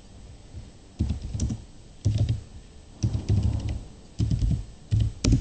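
Typing on a computer keyboard in short bursts about a second apart, with a sharp, louder keystroke near the end.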